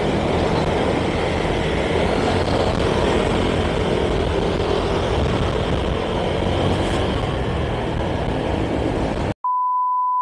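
Motorcycle riding noise in traffic: a steady rush of wind and road noise over the bike's engine and the surrounding vehicles. About nine seconds in it cuts off suddenly and is replaced by a steady, high test-tone beep.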